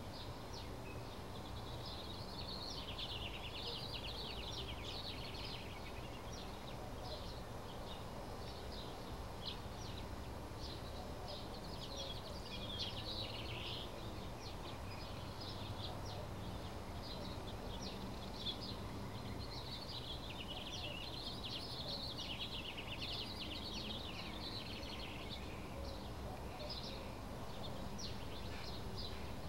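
Outdoor background noise with a steady low rumble, and birds chirping in several runs of quick calls.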